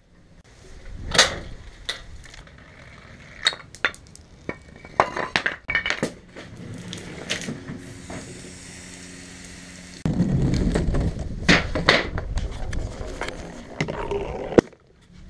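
A string of knocks, clicks and clinks from the parts of a homemade Rube Goldberg machine. A steady low hum runs for a few seconds in the middle, then a louder, busier stretch of clatter cuts off suddenly near the end.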